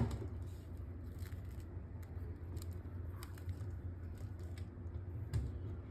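Small plastic clicks and knocks of beauty-machine handpieces and tube connectors being handled and fitted, with one sharp click at the start, then scattered faint taps over a steady low hum.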